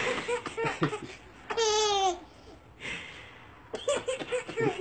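Baby laughing in short bursts, with one long high-pitched squealing laugh about one and a half seconds in, then a run of quick giggles near the end.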